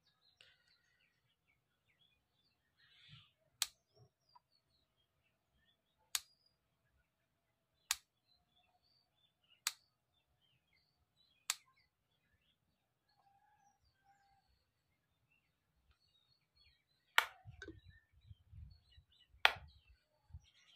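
Sharp single clicks from a modular fan regulator knob being turned through its steps on a switchboard, with a bulb as the load: five clicks spaced about two seconds apart, then two louder ones near the end with a low rubbing of hand on the board between them.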